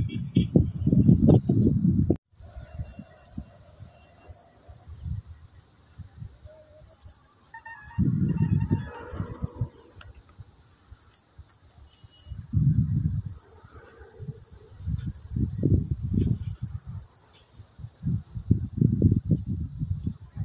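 Steady high-pitched insect chorus, a continuous shrill drone of crickets, with irregular low rumbling bumps on the microphone. The chorus drops out for an instant about two seconds in.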